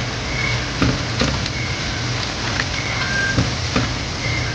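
Meat and ground spices sizzling and bubbling in oil in a pan while being stirred with a silicone spatula, with a few light clicks of the spatula against the pan.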